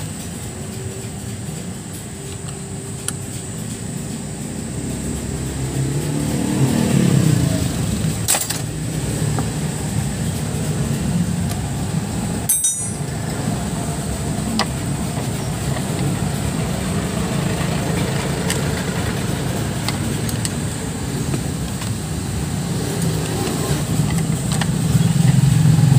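A motor vehicle engine running steadily, with a rise in pitch about seven seconds in. A sharp click comes about eight seconds in, and the sound cuts out briefly near the middle.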